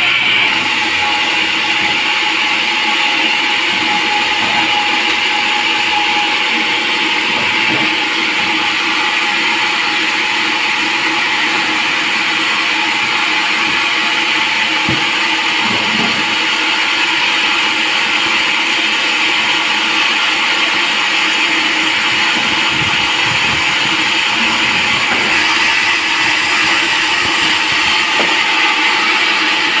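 Sawmill saw running steadily while sawing a teak log, a continuous loud high-pitched noise with a few faint knocks.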